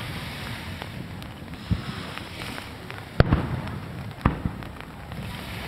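Aerial firework shells bursting in the sky: a few sharp bangs over a steady background rumble, the loudest about three seconds in with a quick second one just after it.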